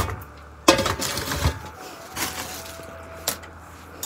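Plastic bags of minced beef handled in a plastic tray: crinkling and rustling with a few sharp knocks and light clinks, the loudest a little under a second in.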